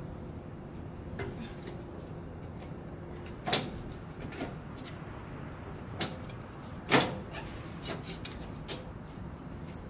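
Semi-trailer landing gear being cranked by hand: scattered clicks and metal clunks from the crank handle and gearbox, with two louder knocks about three and a half and seven seconds in, over a steady low hum. The landing gear is hard to crank.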